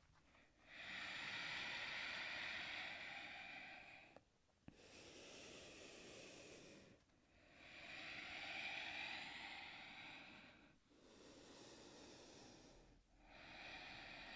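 A woman's slow breathing, faint and airy, in and out about every three seconds: five breaths, alternately stronger and weaker.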